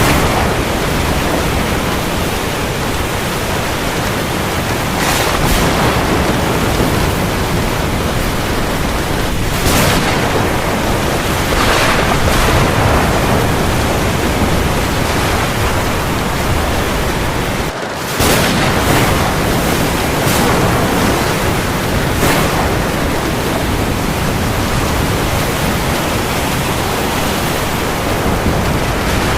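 Steady heavy rain falling on the sea, with sea waves swelling every few seconds. The sound drops out for a moment a little past halfway.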